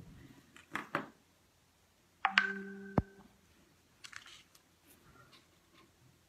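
A phone being handled and tapped, giving a few sharp clicks. A little over two seconds in, a short steady tone sounds for under a second, with a sharp click during it.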